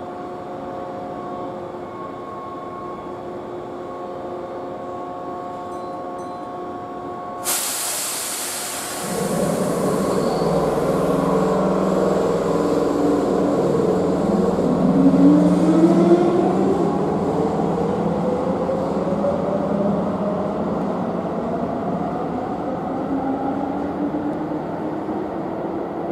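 Keihan 1000 series electric train standing with a steady electrical hum, then a sudden loud hiss of air about seven seconds in. The train then pulls away, its wheels rumbling on the rails and its traction motor whine climbing steadily in pitch as it gathers speed.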